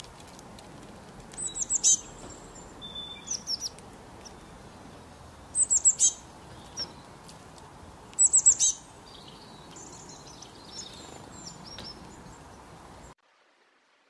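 Small songbirds chirping: three bursts of four or five quick, high, falling chirps, about two, six and eight seconds in, with fainter twitters between, over a steady background hiss. The sound cuts off shortly before the end.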